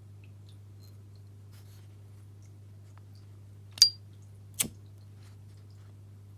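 Two sharp clicks from a gold-plated S.T. Dupont Ligne 1 lighter being handled, under a second apart; the first carries a brief high ring.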